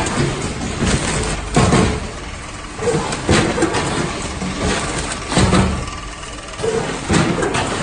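Samfull SF-420WM automatic vertical bag-packing machine running: a steady mechanical hum with repeated sharp knocks at uneven intervals as it cycles, sealing filled bags and dropping them onto the output conveyor.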